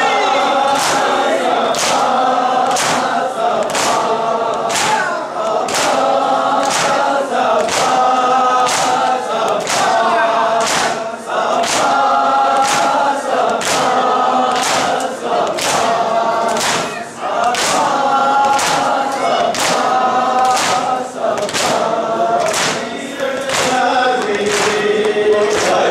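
A crowd of men chanting a Muharram noha (lament) in unison, with matam: many hands striking bare chests together in a steady beat a little faster than one strike a second.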